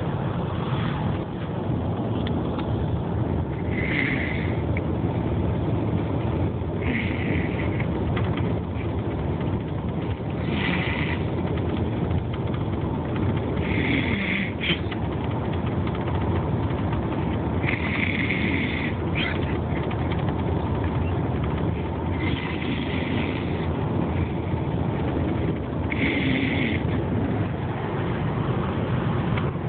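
A sleeping person snoring, one rasping snore about every three to four seconds, over a steady low rumble.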